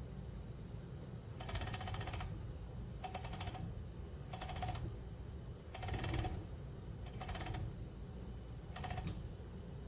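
Industrial sewing machine stitching a seam in six short bursts, each under a second, a rapid needle clatter that starts and stops as the fabric is guided through.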